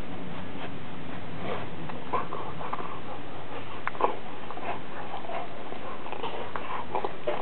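Husky gnawing and chewing a T-bone: irregular crunches and clicks of teeth on bone, the sharpest about four seconds in.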